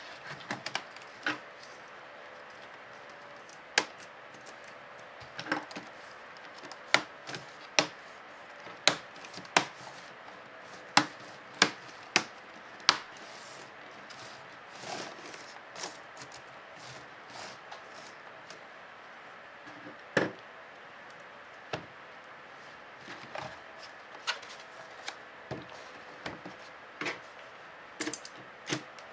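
Sharp plastic clicks and snaps as an HP Pavilion TouchSmart 15 keyboard is pressed down into the laptop's top case and its edge clips seat. About a dozen loud clicks come close together in the first half, then softer scattered taps and clicks.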